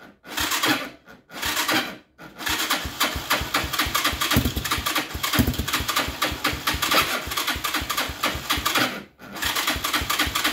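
Bashan ATV's electric starter cranking the engine in repeated attempts without it catching: two short bursts, a long crank of about seven seconds, then another try near the end. The owner takes it that the engine is not getting fuel to the carburettor.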